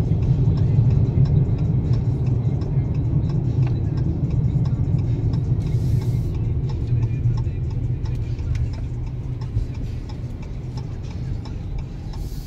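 Steady low road and engine rumble heard inside a moving car's cabin, with light ticking over it, growing somewhat quieter through the second half.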